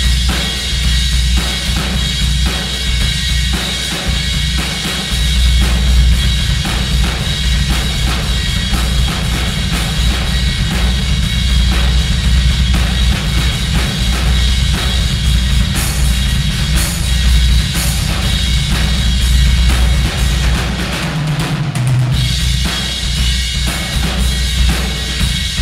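Acoustic drum kit played continuously, with bass drum, snare and a constant wash of cymbals, in a half-finished room that echoes too much. The cymbal wash briefly stops a little past three-quarters of the way through, then picks up again.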